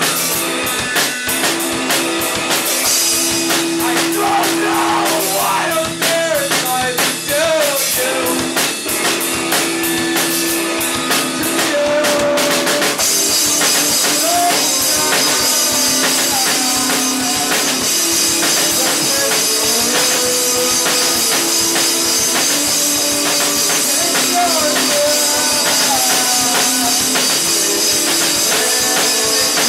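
Live rock band playing a song: drum kit, guitar and a singing voice. About 13 seconds in, the cymbals open up and a bright wash fills the top of the sound.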